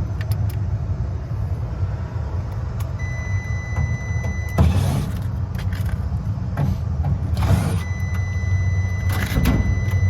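Steady low machinery hum, with three short rushes of noise. A multimeter's continuity beep sounds as a steady high tone for about a second and a half near the middle and again from about eight seconds in, showing the blower motor winding shorted to ground.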